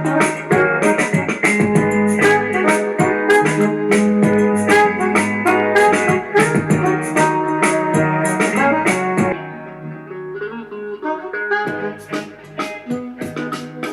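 Music with keyboard and a steady drum beat, played through a Zealot barrel-shaped Bluetooth speaker as a sound test. About nine seconds in it suddenly turns quieter and thinner.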